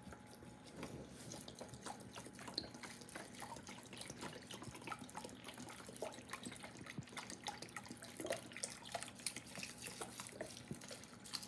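Chicken broth poured from a carton into a baking dish of rice: a faint steady trickle with many small splashes and drips.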